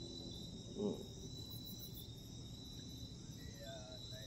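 Night insects chirring steadily in one thin, high, unbroken tone, with a brief louder call about a second in.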